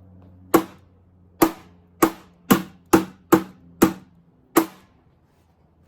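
Eight sharp blows struck in quick succession on a Macintosh 512K computer, each a hard crack with a short ring, coming fastest in the middle of the run.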